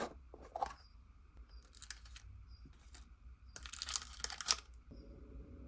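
Hands stretching and squishing cloud slime mixed with clay, making crackly tearing sounds in several short bursts. The longest and loudest burst comes around the middle.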